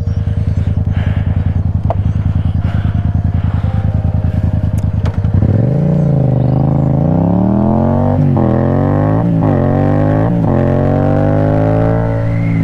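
Yamaha FZ-07's parallel-twin engine idling with an even pulse, then about five seconds in pulling away and accelerating, its pitch climbing in each gear with three quick upshifts before settling into a steady cruise.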